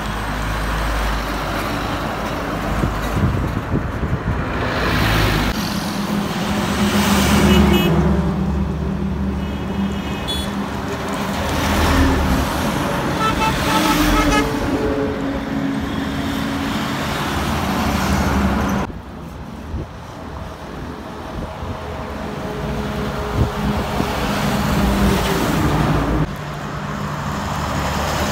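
Heavy diesel tanker lorries and other highway traffic passing close by, engine and tyre noise swelling and fading with each vehicle. Short horn toots sound several times.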